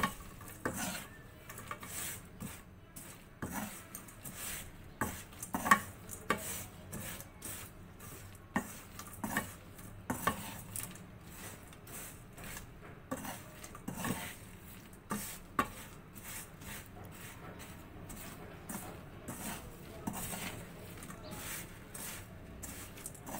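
Peanuts being stirred through hot salt in a kadai with a wire-mesh strainer: irregular scraping and rattling of the metal strainer against the pan as the nuts and salt are turned over, the loudest stroke about six seconds in. The nuts are dry-roasting in the salt.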